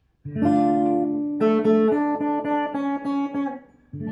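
Acoustic guitar playing the introduction to a romance: a chord rings out, then a run of evenly picked notes over it, with a fresh chord struck near the end.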